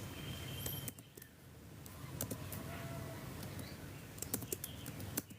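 A few scattered light clicks of someone working a computer keyboard, over a faint steady low hum.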